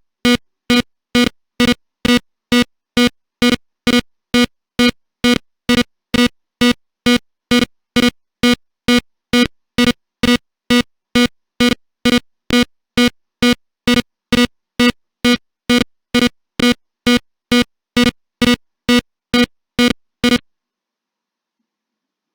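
Alarm buzzer of a PIC16F628A alarm clock beeping: a steady train of short, low buzzing beeps, about two and a half a second, that stops abruptly about twenty seconds in as the alarm is silenced.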